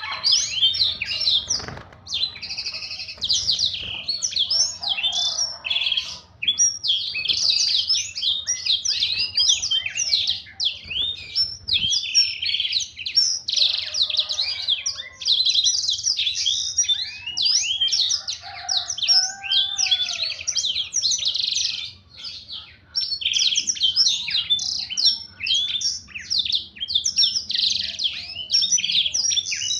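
Black-throated canary (blackthroat) singing: a long, fast, continuous warbling song of high, quickly changing notes, breaking off only briefly twice.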